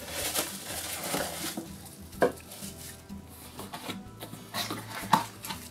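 Plastic packaging and bubble wrap crinkling and rustling as a cat bowl is unwrapped from its cardboard box. There is a sharp knock about two seconds in and another near the end, like the bowl clinking against the table.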